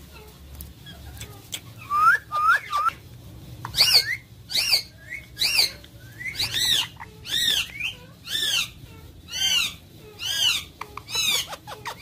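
Indian ringneck parakeets calling: three short rising chirps about two seconds in, then a steady series of about nine shrill squawks, a little under a second apart.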